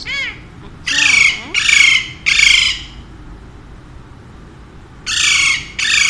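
Alexandrine parakeet giving loud, harsh squawks: three in quick succession about a second in, then two more near the end.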